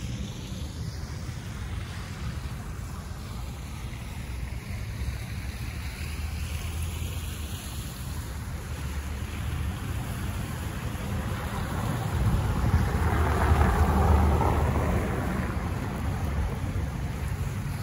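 Wind rumbling on the microphone over a steady wash of splashing water from a park fountain. The noise swells for a few seconds after the middle, then settles again.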